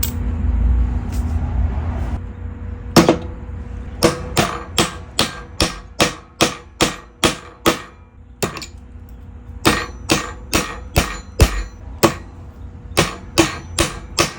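A 22-ounce smooth-face steel framing hammer driving 3-inch nails: runs of sharp strikes, about two to three a second, broken by short pauses, over a low steady hum.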